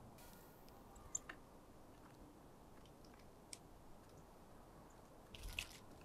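Near silence with a few faint ticks, then near the end a brief flutter of wingbeats and a soft knock as a Eurasian nuthatch lands on a wooden bird feeder.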